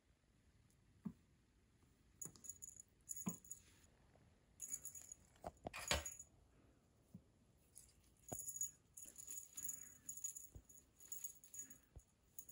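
A kitten batting at a ribbon wand toy on a wooden floor: faint, scattered jingly rustling with a few soft knocks of paws and body on the boards, the loudest about six seconds in.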